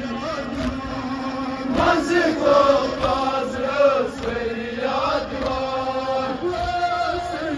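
Male voices chanting a Kashmiri noha, a Shia lament for Muharram, with regular slaps of hands beating on chests (matam) keeping time.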